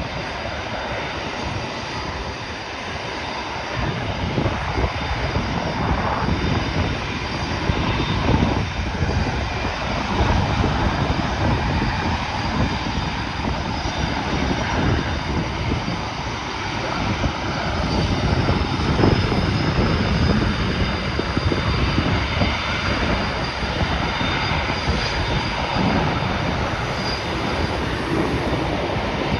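Several Canadair CT-114 Tutor jets taxiing, their single turbojet engines giving a steady rush with a thin high whine, a little louder from about four seconds in.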